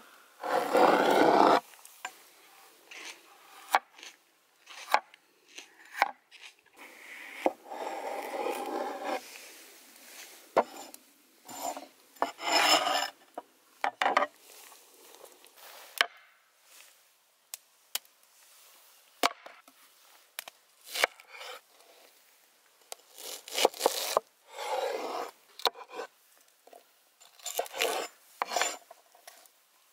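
Knife, and later a cleaver, cutting bell peppers and red onion on a wooden cutting board: irregular sharp taps of the blade on the board, with several longer scraping sounds of a second or two in between.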